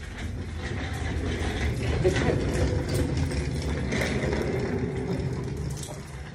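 Wheeled office chair's casters rolling across a hard floor as the chair is dragged along, a steady rolling rumble that is loudest in the middle and eases near the end.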